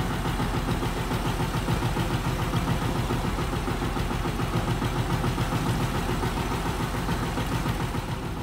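A boat's engine idling steadily with a low, even hum.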